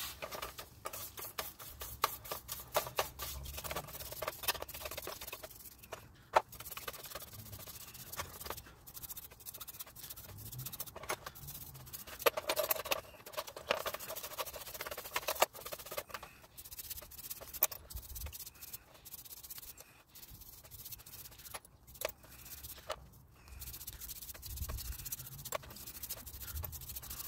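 Small brush scrubbing drum-brake springs, pins and other hardware submerged in a tub of gasoline: irregular scratching, with occasional sharp clicks.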